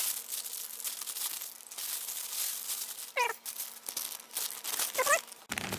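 Product packaging crinkling and rustling as it is cut and torn open with a small folding knife, with two short high-pitched wavering cries about three and five seconds in.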